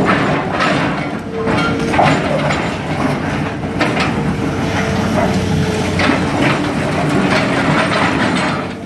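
Caterpillar excavator's diesel engine running steadily under load while its hydraulic crusher jaws crunch and break concrete slabs, with irregular cracks and clatters of falling rubble about every second.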